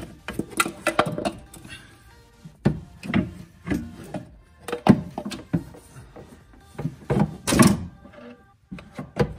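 Heat-wrapped steel turbo downpipe knocking and thunking against engine-bay parts as it is worked down into place from above, in irregular knocks every half second or so.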